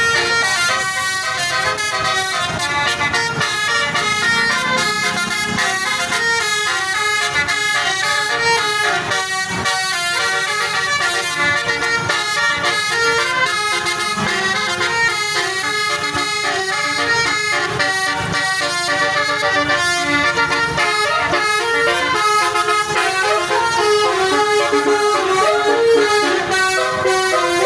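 A bus's telolet basuri musical horn playing a melody, a run of changing notes with several horn tones sounding together.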